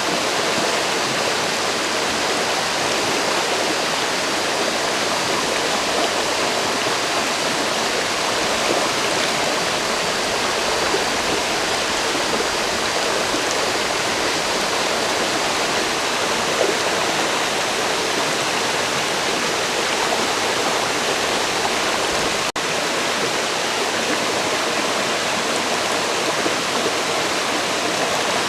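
River rushing and splashing in a steady, even flow of water noise. About three-quarters of the way through it drops out for a split second.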